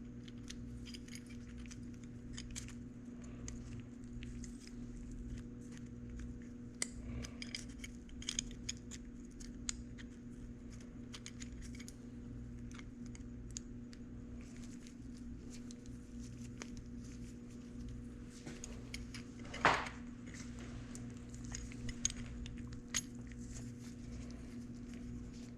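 Small metal parts of a motorcycle gearshift mechanism clicking and clinking as they are handled and fitted by hand, with one sharper clack about three-quarters of the way through, over a steady low hum.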